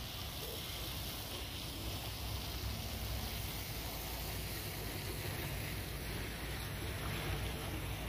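Steady low rumble of a vehicle engine running, under an even hiss of wind.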